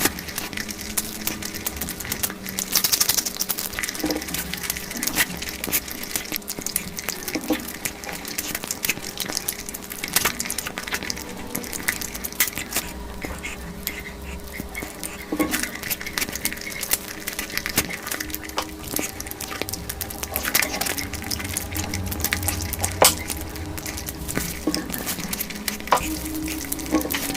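A person eating spicy mutton and egg curry close to the microphone: continuous chewing and wet mouth sounds, made up of many small clicks and crackles.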